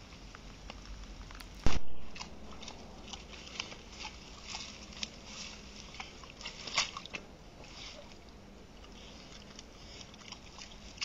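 Wild boar chewing and crunching maize at a bait container: a run of small, irregular crackling crunches. A single loud thump about two seconds in.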